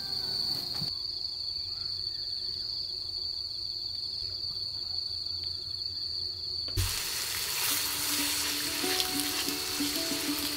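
Crickets chirring in one steady high tone. About seven seconds in, food starts sizzling in a pan, with soft background music under it.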